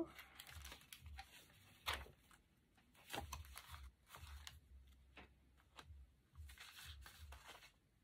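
Faint rustling of paper pages as a stack of folded journal pages is handled and leafed through, with a sharper paper rustle about two seconds in.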